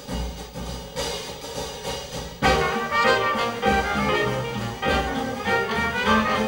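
Live Dixieland jazz band. It opens with drums alone and a few low bass-drum thumps, then about two and a half seconds in the full band comes in loudly, with trumpet and trombone playing together in front.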